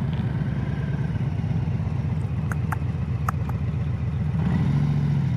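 Harley-Davidson Low Rider S V-twin engine running at a slow roll, heard from the rider's seat, with a few light clicks near the middle. The engine note gets louder about four and a half seconds in.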